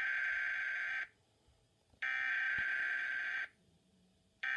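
Emergency Alert System SAME header: a series of data-tone bursts, each about a second and a half long with about a second of silence between them, marking the start of a tornado warning alert.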